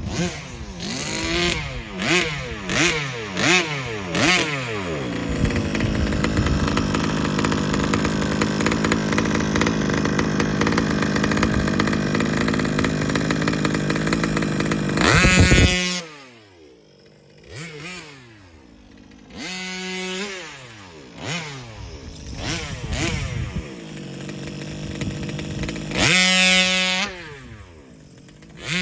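HPI Baja 5B's small two-stroke gas engine, blipped in short revs at first, then held at high revs for about ten seconds as the buggy runs. Near the middle it gives a sharp rev and drops back to a low idle, followed by more throttle blips, the loudest one near the end.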